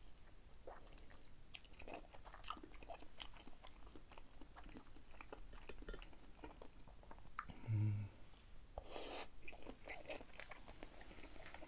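Close-miked chewing of a soft skewered fish cake (eomuk), with many small wet mouth clicks. A short hummed "mm" comes about eight seconds in, followed by a brief noisy breath.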